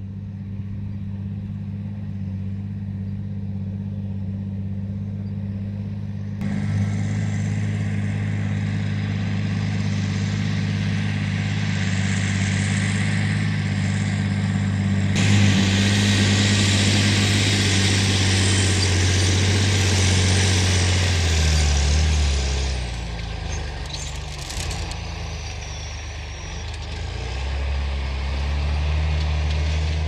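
John Deere 8520 tractor's six-cylinder diesel engine running steadily under load while pulling a five-furrow reversible plough. About two-thirds of the way through, the engine note drops as the tractor slows at the headland, with a few knocks; near the end it rises again as the plough is lifted and swung over.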